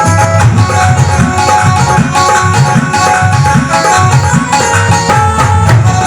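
Live Indian band music: a hand drum (dholak) plays a quick beat, its bass strokes gliding in pitch, under a sustained melody line.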